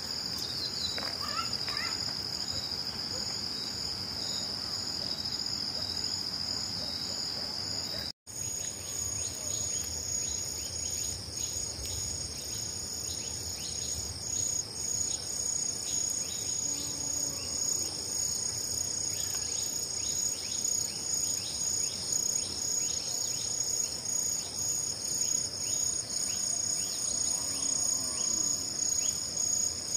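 Insects trilling steadily in a continuous high-pitched drone, with a faster pulsing chirp layered above it. The sound cuts out for an instant about eight seconds in.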